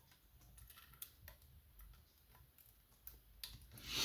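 Faint scattered ticks and clicks of a lock pick and tension tool working the pins of an Avocet ATK lock cylinder, with a brief louder rustle near the end.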